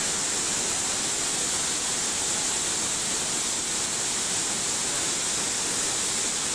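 Waterfall rushing steadily: an even, unbroken hiss of falling water with no breaks.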